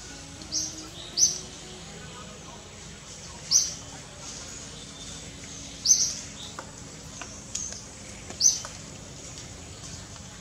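A bird calling: five short, sharp, high-pitched chirps, spaced irregularly one to two and a half seconds apart.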